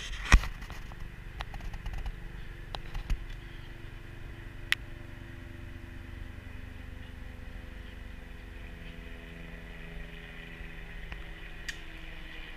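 Plastic toy lightsaber blades clacking together: a loud knock at the start, then a few lighter knocks in the next few seconds, over a steady low hum.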